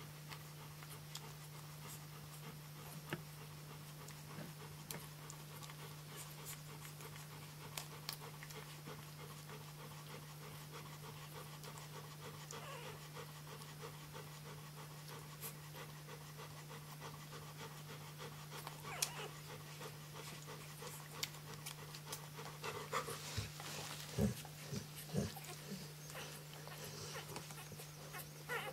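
Flat-coated retriever mother panting steadily while her three-day-old puppies nurse against her, with faint clicks throughout. A few short, louder sounds come in the last several seconds, all over a steady low hum.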